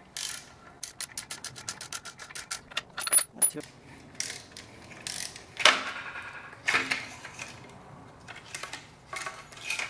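A socket ratchet clicks in a quick run of about eight clicks a second as an exhaust manifold bolt is backed out. Then come several louder metal clanks and knocks as the exhaust manifold is worked off the 3.4 pushrod V6's cylinder head.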